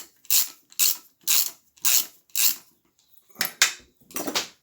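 Ratchet socket wrench clicking in quick back-and-forth strokes, about two a second, backing out a cylinder head bolt on a Suffolk small engine. The strokes pause briefly about three seconds in, then resume.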